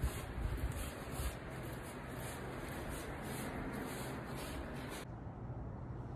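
Rustling and rubbing handling noise as a hand-held phone is moved about, with a few soft knocks in the first second or so; the sound turns quieter and duller about five seconds in.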